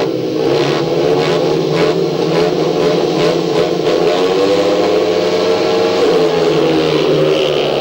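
Four speedway bikes' 500cc single-cylinder methanol engines revving together at the starting gate, several engine notes layered and held high. Near the end the bikes launch away from the start.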